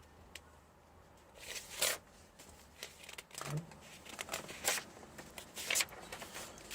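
Pages of a Bible being leafed through, a string of short paper rustles and flicks, with a longer rustle about two seconds in and several quick ones in the second half.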